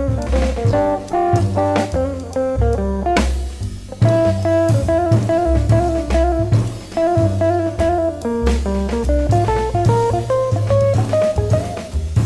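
Background music: an instrumental track with a plucked guitar melody over bass and drums. The band thins out briefly about three seconds in, then comes back in full.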